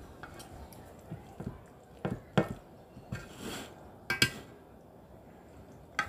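Metal spoon scraping and knocking against a stainless steel bowl as pasta is spooned out into a metal baking pan, with a few sharp clinks scattered through.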